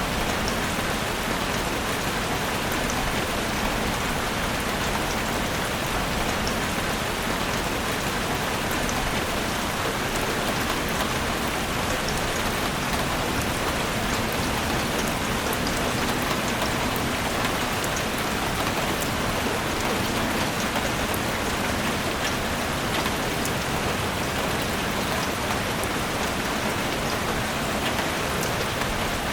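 Steady, even rain falling on a forest, with fine drop patter.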